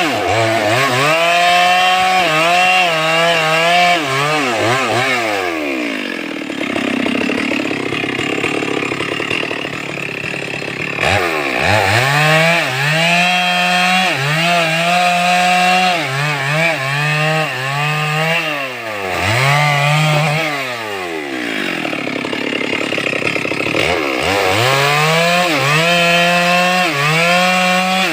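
Stihl MS 382 two-stroke chainsaw running hard, its engine pitch sagging and recovering again and again. It falls away to a low idle about five seconds in, picks back up to full revs near eleven seconds, and drops and rises once more around twenty to twenty-four seconds.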